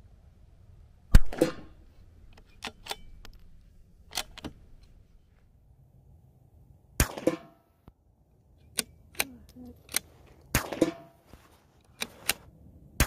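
Four shots from a Rim X bolt-action .22 LR rifle, fired a few seconds apart as part of a five-shot group, each a sharp crack with a short ringing tail, and softer clicks of the bolt being worked between shots.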